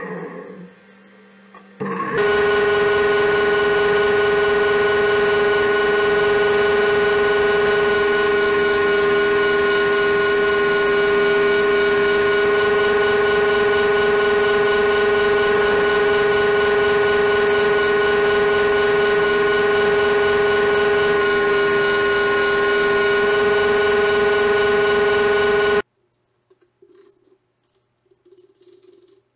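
Sliding table saw running with a loud, steady whine of several fixed pitches while cutting a narrow strip of particleboard. It starts abruptly about two seconds in and cuts off suddenly near the end, leaving near quiet with a few faint sounds.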